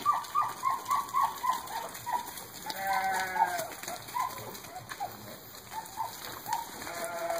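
Sheep bleating, once about three seconds in and again near the end, among a run of short, high chirping calls repeated about four times a second.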